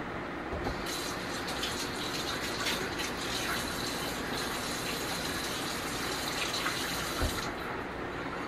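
Water running from a kitchen tap into a sink: a steady rush that starts about a second in and stops near the end.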